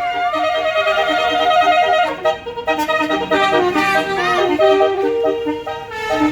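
Basuri musical bus horn playing a tune, several reedy horn tones sounding together and changing note in steps, with a brief break about two seconds in.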